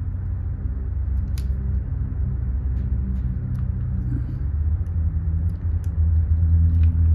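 Steady low rumble with a low hum, growing a little louder near the end, with a few faint clicks from a card being pushed into a plastic sleeve and top loader.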